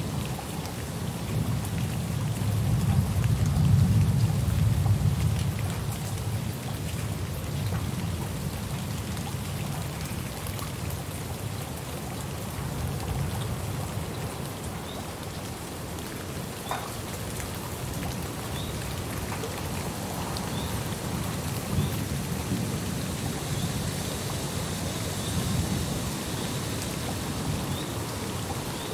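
Steady heavy rain with rolling thunder. A long, low rumble swells to its loudest about four seconds in, and a milder roll comes later on.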